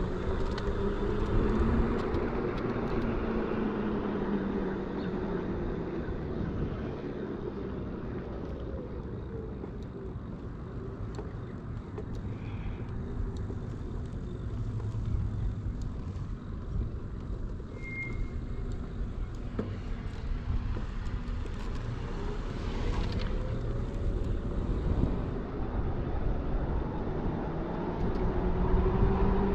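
Electric bike's QS 273 hub motor whining as it rides, the pitch falling as it slows over the first several seconds and rising again as it speeds up near the end, over a steady low rumble.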